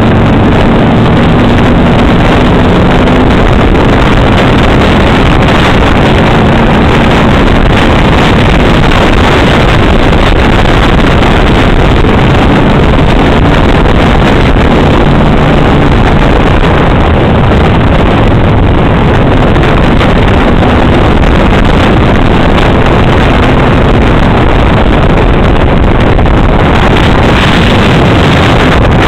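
Loud, unbroken wind rush on the microphone of a camera riding a moving motorcycle, with the low drone of motorcycle engines underneath.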